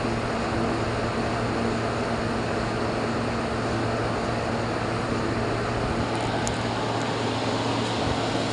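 Refrigeration equipment running steadily: a constant fan rush over a low, even hum.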